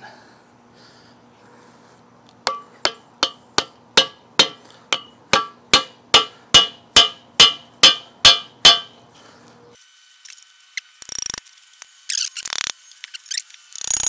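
Hammer striking the handle of a screwdriver wedged into a motorcycle handlebar brake lock to pry it open: about sixteen sharp, ringing blows, evenly spaced at a bit over two a second. After a cut, scattered metallic clicks and scraping as the screwdriver is worked in the lock.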